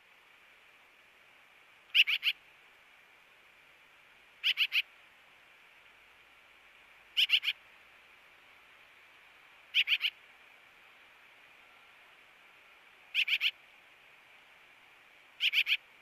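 Black-billed magpie calling: six short bursts of three quick notes each, coming every two to three seconds, over a steady faint hiss.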